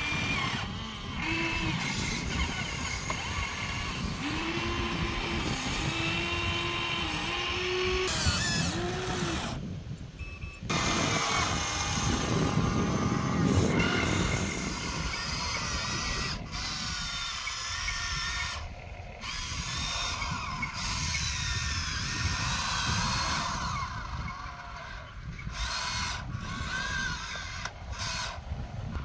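Electric motors of a Huina radio-controlled excavator whining as its arm and bucket move. The whine starts, stops and shifts in pitch, over a rough scraping noise, and breaks off abruptly several times.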